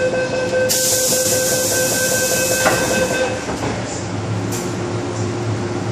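MTR M-Train doors closing: a steady high door-warning tone sounds for about three seconds while a loud hiss runs beneath it, ending in a sharp knock as the doors shut. A steady low hum of the standing train follows.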